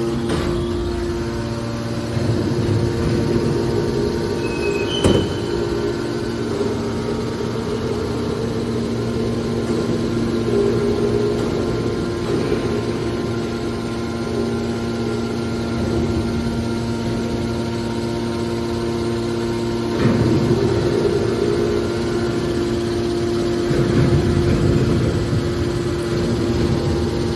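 Hydraulic scrap metal baler running: its pump motor gives a steady hum, with a few sharp metal knocks, the loudest about five seconds in and about twenty seconds in.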